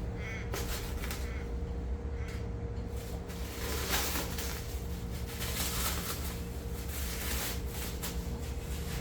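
Rustling, light knocks and clicks of furnace kit parts and packaging being handled and unpacked, over a steady low hum.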